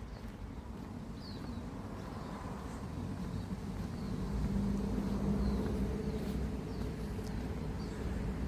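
A motor vehicle's engine running, a low hum that grows louder about halfway through and eases off again, with faint short bird chirps throughout.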